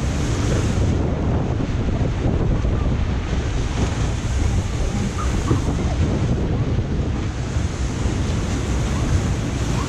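Churning, rushing water of a whitewater ride channel around the boat, steady throughout, with wind buffeting the microphone.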